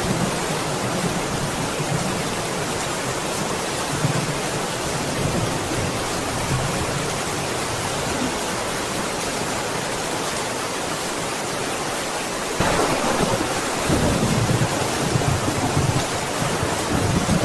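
Steady heavy rain with low rolling thunder rumbling under it, fading in the first few seconds. The rain gets suddenly louder about two-thirds of the way in, and the thunder rumbles again near the end.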